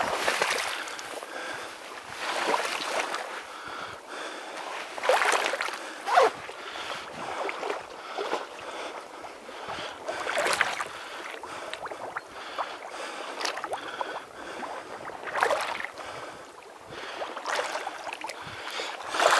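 A small boat being rowed or paddled through shallow marsh water: a swish and splash of the blade in the water about every two to two and a half seconds, over a light steady wash of water.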